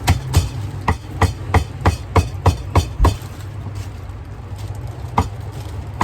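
Cleaver chopping on a wooden chopping block: about ten quick strikes over three seconds, then one more strike near the end, over steady traffic rumble.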